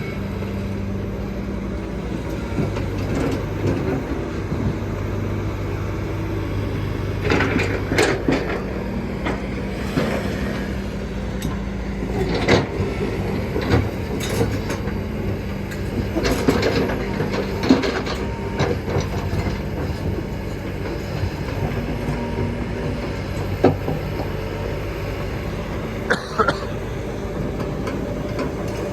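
Kobelco hydraulic excavator's diesel engine running steadily, with scattered sharp knocks and scrapes from the bucket working rock.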